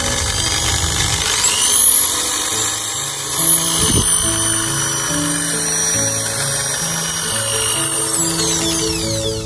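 Makita 6413 corded electric drill running with an empty chuck: a high motor whine that climbs in pitch over the first couple of seconds, holds steady, then falls away as the drill spins down near the end.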